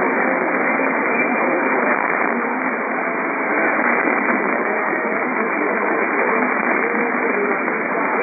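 Radio receiver static: a steady hiss on a narrow, tinny band, with faint broadcast audio buried under it.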